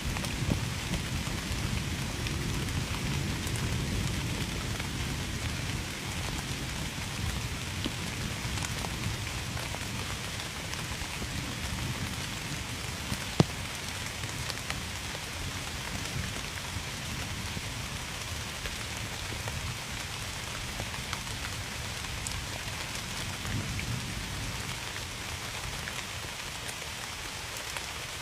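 Steady rain falling on a surface, with scattered individual drops ticking through it and one sharp, louder drop tick about halfway through. A low rumble underneath in the first few seconds fades away.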